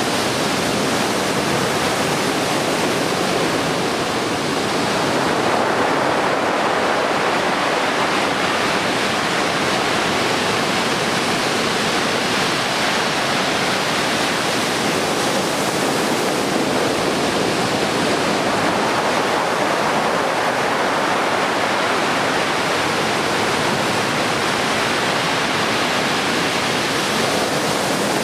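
Heavy surf from a typhoon swell breaking continuously, a loud, steady rush of water with no gap between waves, swelling and easing slightly a few times.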